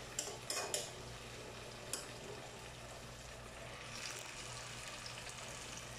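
Stir-fry sizzling quietly in a non-stick frying pan, with a few light clicks of a metal spoon against the pan in the first two seconds.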